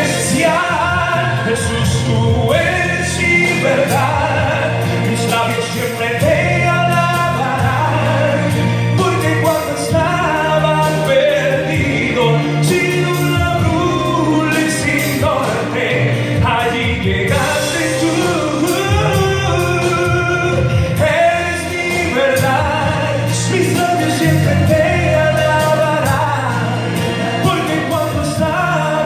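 A man singing a Christian worship song into a handheld microphone over accompanying music with a steady bass line, amplified through the room's speakers.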